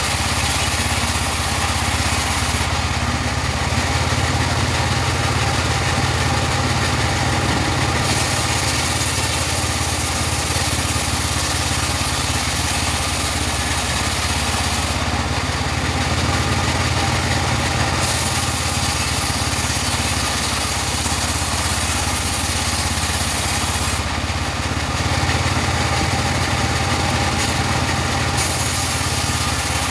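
Engine-driven portable bandsaw sawmill running steadily while sawing teak, with a continuous engine drone under a steady hiss of the blade that shifts a few times.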